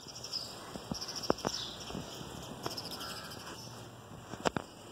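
Water drops falling from a roof drainpipe spout and landing with irregular sharp taps, the loudest about a second in and near the end. A high, pulsing chirping runs steadily underneath.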